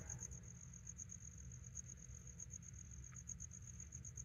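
A cricket chirping faintly and steadily: a high, even pulsing call of about seven beats a second.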